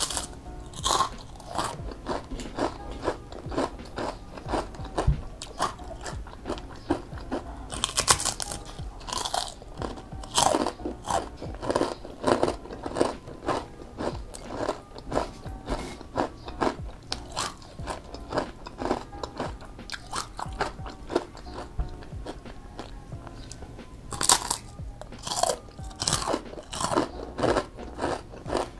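Crispy batter-fried tempeh being bitten and chewed: a steady run of crunches, with three louder bites.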